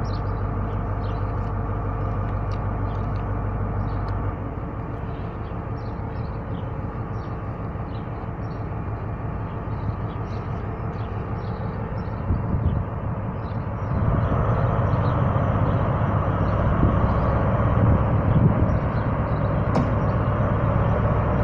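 Class 43 HST power car's diesel engine idling steadily, then opening up about two-thirds of the way through, louder and rougher, as the train starts to pull away.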